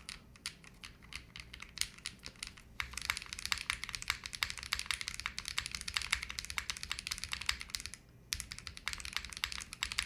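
Typing on a JRIS75 custom mechanical keyboard with Moon v2 linear switches, GMK keycaps, a polycarbonate plate and a flex-cut PCB, built without foam. A few scattered keystrokes, then fast continuous typing from about three seconds in, with a brief pause about eight seconds in.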